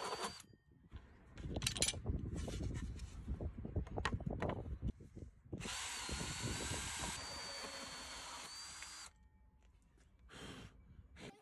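Cordless drill driving a hole saw through a panel: a few seconds of rough, uneven grinding as the saw cuts, then about three seconds of steady high motor whine before it stops, with a brief burst near the end.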